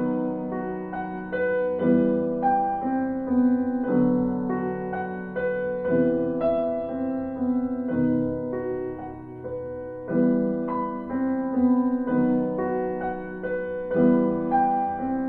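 Solo piano music: slow chords and a gentle melody, each note struck and left to ring.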